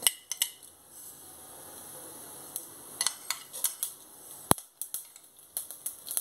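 Mustard seeds sizzling as they hit hot sesame oil in a pot, with scattered sharp clicks and taps of a steel spoon on the pot and seed tray. There is one loud tap about four and a half seconds in. This is the tempering stage, and the sizzle shows that the oil is hot enough for the seeds to splutter.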